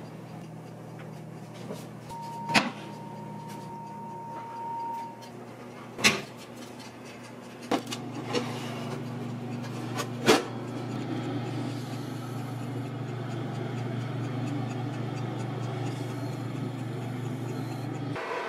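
Steady low hum of a running kitchen appliance. About two seconds in comes a long steady beep lasting about three seconds. Several sharp knocks and clacks are scattered through the first ten seconds.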